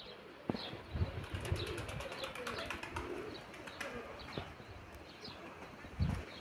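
Domestic pigeons cooing, with small birds chirping briefly and repeatedly. Low rumbling bumps on the microphone come about a second in and again near the end.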